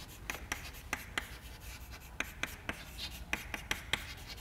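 Chalk writing on a chalkboard: an irregular run of quick taps and short strokes as words are written out.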